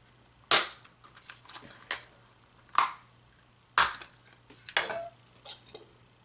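Sharp plastic clicks and knocks of a cordless phone's handset housing and parts being handled and pressed together: five loud ones about a second apart, with lighter ticks between.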